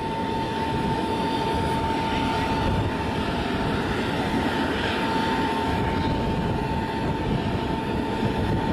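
An engine running steadily: an unchanging whine over a low rumble, holding the same pitch and level throughout.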